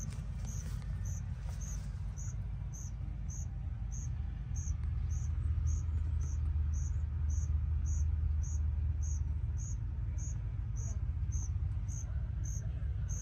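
A cricket chirping steadily, about two short high chirps a second, over a louder low rumble that swells in the middle and eases off again.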